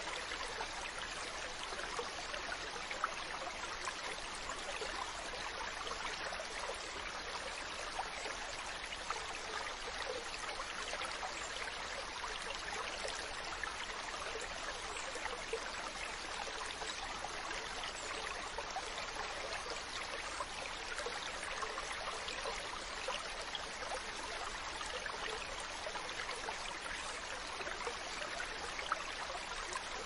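Running water from a stream: a steady, even rush with a fine crackle and no change in level.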